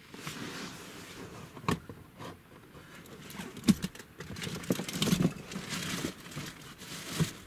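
Close rustling and crinkling with irregular clicks and knocks, as of something being handled right by the microphone; the loudest knocks fall about halfway through.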